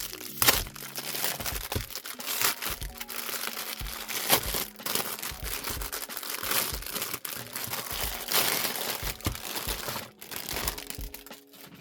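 Plastic shrink-wrap crinkling and tearing as it is peeled off sealed albums, in irregular rustles and sharp crackles, over soft background music.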